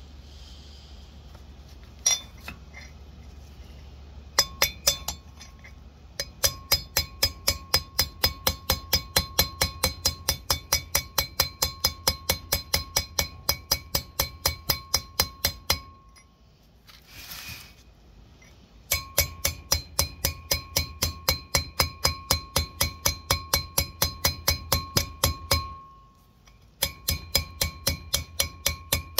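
Rapid hammer blows, metal on metal, about four or five a second, driving a new wheel bearing race into the hub of a Ford Econoline brake rotor with the old race as a driver. Each blow rings with a high clink. The hammering comes in long runs with two short pauses.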